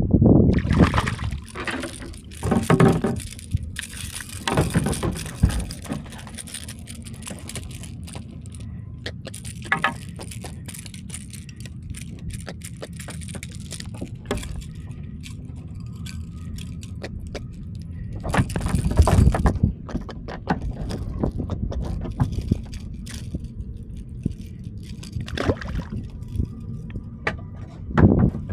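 Handling sounds of a small fish being landed and unhooked in a kayak: bursts of clattering and knocking from the lure, hooks and rod against the hull, loudest near the start, around the middle third, and near the end.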